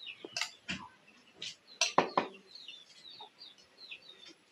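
Chickens clucking: several short clucks spread through the few seconds, with faint high chirping in between.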